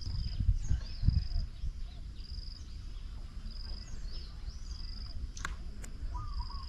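Outdoor ambience of birds calling in trees: a short high trill repeating about once a second, small chirps between, and a lower wavy call near the end. Low rumbling knocks in the first second and a half and two sharp clicks about five and a half seconds in.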